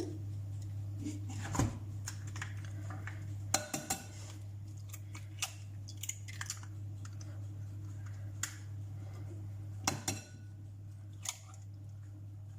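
Eggs being cracked on the rim of a bowl: a handful of sharp knocks and clicks spread across several seconds, over a steady low hum.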